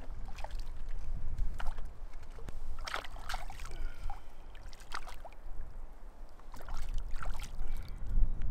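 A hooked trout splashing in shallow lake water at the shoreline as it is drawn in and grabbed by hand, a handful of short, sharp splashes. A steady low rumble of wind on the microphone runs underneath.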